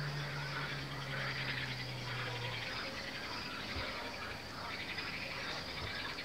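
Chorus of frogs calling, a dense pulsing trill, with a low steady hum underneath that stops about two and a half seconds in.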